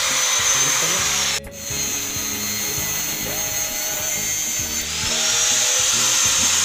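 Electric angle grinder running with a high whine. The sound cuts out for an instant about a second and a half in, and near the end the whine rises again as the motor speeds back up.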